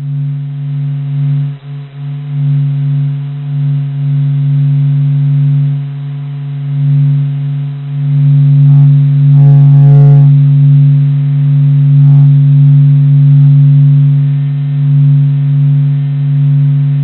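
Sonified recording of the Sun's surface oscillations, generated from Solar and Heliospheric Observatory (SOHO) data: a slightly haunting, otherworldly low hum that swells and fades slowly, with a brief cluster of higher tones about nine to ten seconds in.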